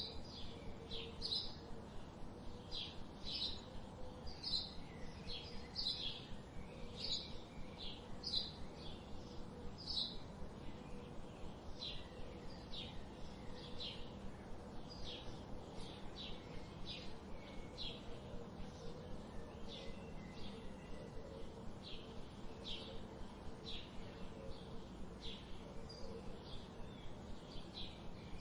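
A bird chirping repeatedly, short high chirps at about two a second, over a faint steady low hum.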